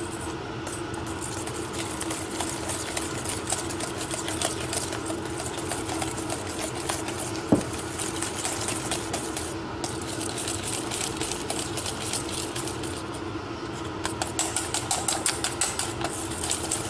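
Wire whisk beating egg yolks and grated pecorino into a cream in a stainless steel bowl: a fast, even clatter of the wires against the metal, louder and sharper near the end. A single knock about halfway through, over a steady low hum.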